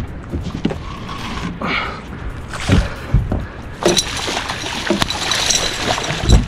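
Hooked muskellunge thrashing at the surface beside the boat, with heavy splashing from about four seconds in. Before that come a few dull knocks, and there is a heavy thump near the end.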